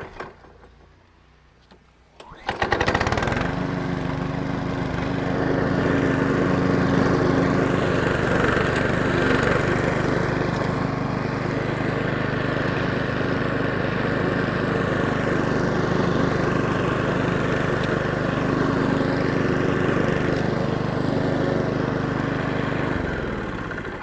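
Powersmart DB8621SH mower's 209cc four-stroke engine starts about two and a half seconds in and runs steadily while the blade mulches grass clippings. Near the end it is shut off and its pitch falls as it winds down.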